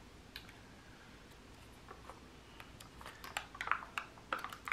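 Small clicks and crackles of a plastic tissue-culture plant cup being handled and opened, starting about two seconds in and growing busier toward the end.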